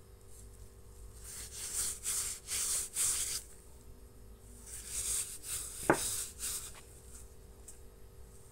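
Black-gloved hands rubbing together and working in a bowl of flour, coating the gloves so the dough won't stick. The rubbing comes in two stretches of a couple of seconds each, with a single sharp tap near the six-second mark.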